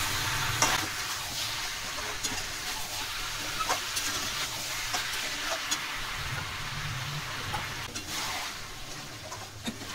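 Chicken pieces sizzling in oil and spice paste in a metal kadai as a flat metal spatula stirs and scrapes them, with scattered clicks of the spatula against the pan. This is the slow frying-down (kosha) stage of the curry.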